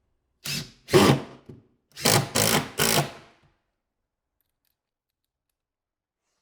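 Power drill driving screws through pre-drilled holes into the fridge's end panel, run in three short bursts.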